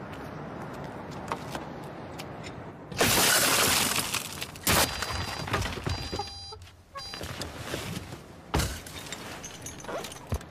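Glass shattering in a loud burst about a second long, as a car window is smashed, followed by a couple of sharp thumps and a run of short high electronic beeps.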